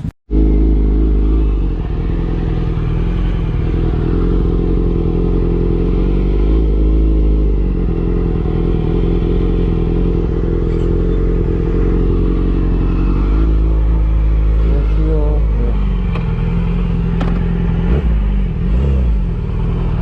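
Motorcycle engine running under way at a steady speed with wind noise, its pitch dipping and rising again a few times in the second half as the throttle is eased off and reopened.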